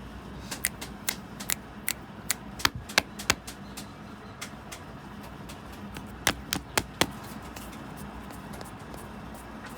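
Light, sharp taps and clicks of small tools and pieces being handled on a work surface, about a dozen of them spread over the first seven seconds, over a steady low hum.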